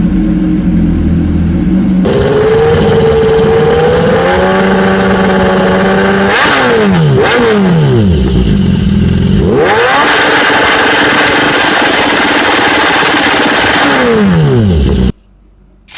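BMW S1000RR inline-four with an aftermarket exhaust, idling and then held at raised revs. Two quick throttle blips rise and fall about six and seven seconds in. A longer rev follows and is held high for several seconds before dropping back, and the sound cuts off abruptly near the end.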